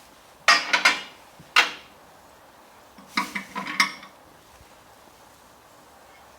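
Microwave oven's glass turntable plate clattering and clinking as it is set onto its roller ring and drive coupler inside the oven cavity. There are a few knocks about half a second to a second and a half in, then another cluster about three seconds in.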